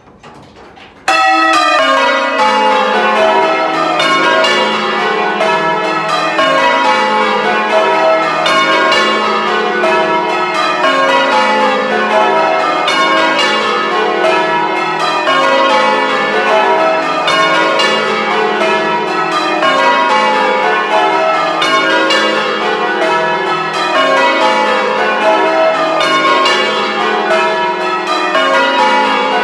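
A ring of eight church bells, the tenor 19-2-9 in E, in full-circle change ringing, heard close up inside the belfry. The bells start striking suddenly about a second in and then ring on loud and unbroken, strike after strike in an even stream.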